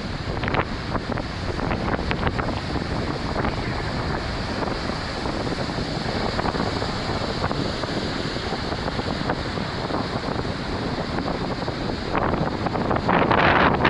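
Heavy ocean swell breaking into surf against a rock breakwater, mixed with wind buffeting the microphone. It is a steady rushing roar that grows louder near the end as a big wave breaks on the rocks.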